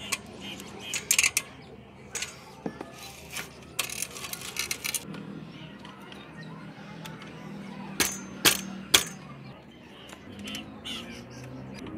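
Sharp metallic clinks and taps of bicycle parts being handled as a front wheel's axle is set into the fork and its nut and washer fitted by hand. There are scattered single clicks, then three sharp clinks close together about eight seconds in.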